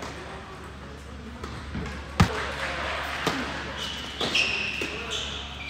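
Tennis ball impacts on an indoor hard court, with one sharp, loud hit about two seconds in. Short high squeaks follow near the end, typical of sneakers on the court surface.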